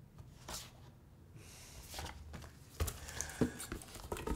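Boxes being handled on an aluminium stepladder: faint rustling, then a few light knocks and clicks in the second half.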